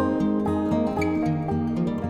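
Instrumental background music: a quick run of plucked string notes over a steady low accompaniment.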